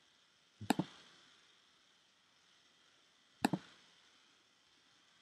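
Two sharp computer mouse clicks, one under a second in and one about three and a half seconds in, each a quick double click-clack of the button pressed and released, over faint room hiss.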